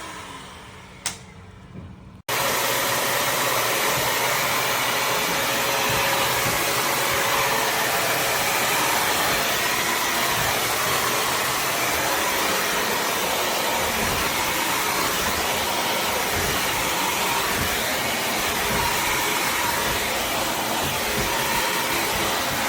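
Bissell CrossWave HydroSteam wet-dry floor cleaner's motor switching on a little over two seconds in, after a click, and then running steadily at full power.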